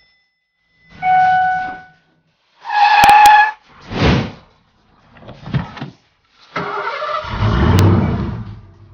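A string of short sound effects cut together with gaps between: two brief electronic tones, the second louder and carrying two sharp clicks, a couple of short rushes, then a car engine starting and revving, the loudest part, swelling toward the end.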